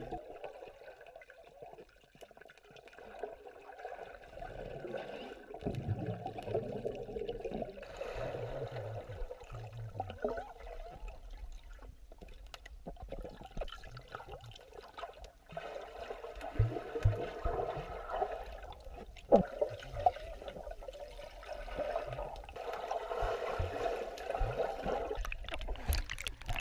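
Swimming pool heard underwater through a submerged camera: a muffled, murky wash of water with bubbling and scattered dull knocks from swimmers moving. About 26 seconds in, the camera breaks the surface with a sharp splash.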